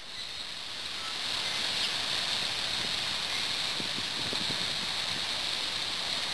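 Swollen flood river rushing, a steady hissing rush that swells up over the first two seconds.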